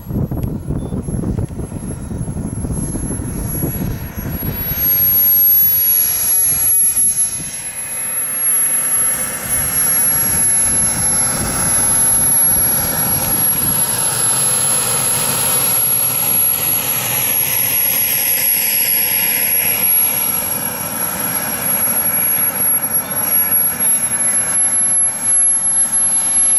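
Kingtech K60 model jet turbine running at low power while the RC jet taxis. A steady high-pitched whine sits over a rushing jet blast, growing louder about five seconds in as the jet comes close.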